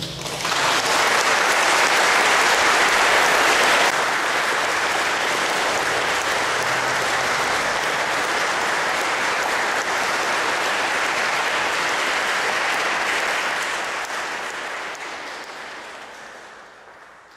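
Audience applauding, a little quieter after about four seconds, then fading out over the last few seconds.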